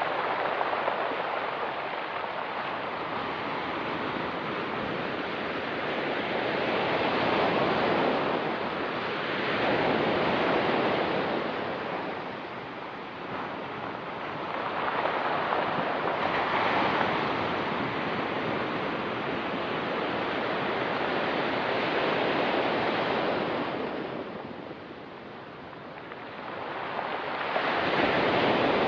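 Ocean surf breaking and washing onto a rocky shore, swelling and fading as wave after wave comes in every several seconds.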